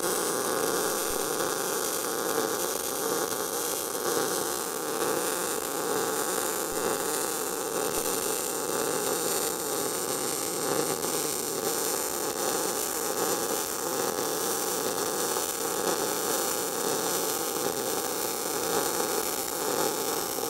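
MIG welding arc from an Eastwood MIG 175 running a continuous bead on a metal plate: a steady, even sizzle with a faint hum.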